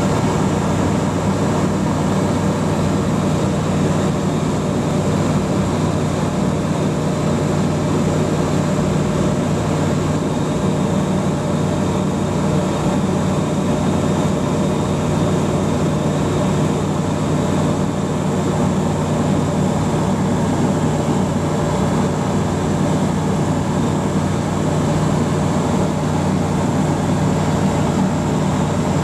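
Evektor Eurostar ultralight's piston engine and propeller droning steadily in flight, heard from inside the cockpit, holding one even pitch throughout.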